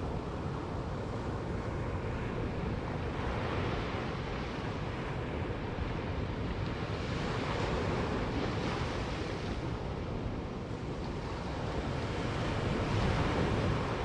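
Ocean surf on a sand beach: small waves breaking and washing up the shore, the rush swelling every four or five seconds, loudest near the end. Wind rumbles on the microphone underneath.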